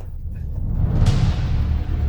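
Background music building up, with a loud hit about a second in that rings off, then a heavy steady bass.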